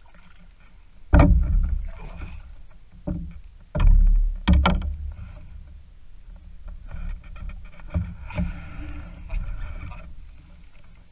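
Loud knocks and thumps against a canoe as a largemouth bass is fought to the boat and landed by hand, several strikes in the first five seconds, then splashing and thrashing water with more knocks about eight seconds in.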